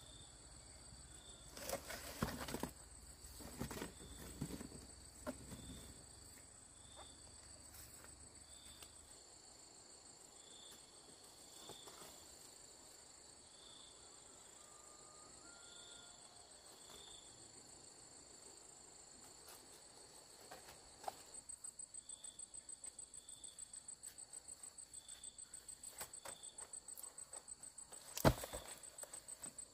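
Several insects chirping together: a steady high trill with a slower chirp repeating about once a second, joined about two-thirds of the way in by a fast pulsing chirp. A few knocks sound in the first few seconds, and one sharp knock comes near the end.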